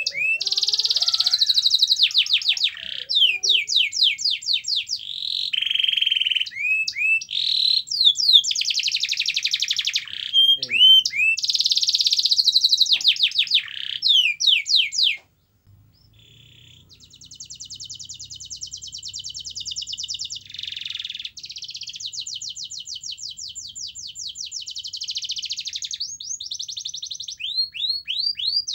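Domestic canary singing a long, fast song of rolling trills and rapid repeated chirps. The song breaks off suddenly a little past halfway, then resumes more softly with a buzzy roll and quick trills.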